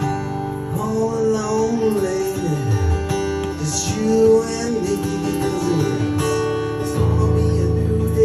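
Live band music: acoustic guitar strumming under a melody that slides up and down in pitch, with a steady bass line below.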